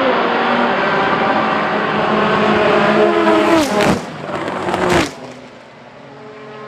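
Two classic racing cars pass at speed down the straight, one after the other, their engine notes climbing as they approach. Each note drops sharply as the car goes by, the first just under four seconds in and the second about a second later, then both fade away.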